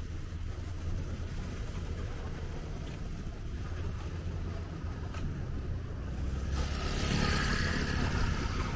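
Roadside traffic: a steady low rumble of passing motor scooters and cars, swelling louder near the end as another scooter goes by.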